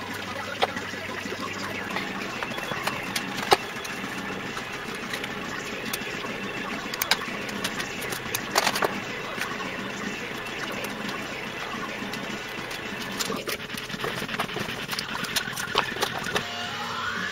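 Small clicks and taps of hand tools and plastic parts as a Ford Cortina Mk3 instrument cluster is taken apart, scattered irregularly over a steady background hiss. A wavering, whistle-like tone comes in near the end.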